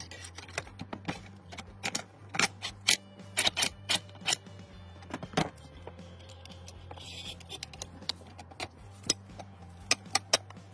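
Sharp metal clicks and clacks of an AK-pattern rifle's parts being fitted together during reassembly. There is a quick cluster of clicks about two to five seconds in, and a few more near the end.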